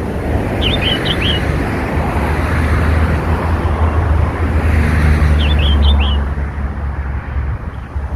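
Red-whiskered bulbul chick giving two short bursts of about four quick chirps, one about a second in and another about five and a half seconds in, over a steady low rumble like wind or traffic noise that is the loudest sound throughout.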